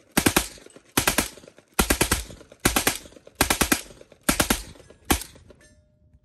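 Beretta M12 open-bolt 9mm submachine gun firing on full auto in seven short bursts of three or four shots each, about one burst every 0.8 seconds, the last burst shorter.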